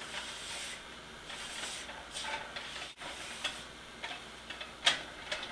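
A spatula stirring and scraping a thick mixture of heavy cream and milk powder in a nonstick pan as it cooks down toward a soft dough (khoya). There is a faint steady hiss of cooking under irregular scraping strokes, the sharpest one near the end.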